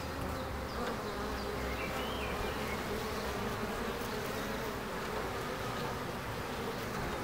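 Honeybees buzzing at a hive entrance: many wingbeats blending into a steady, wavering hum as bees fly in and out.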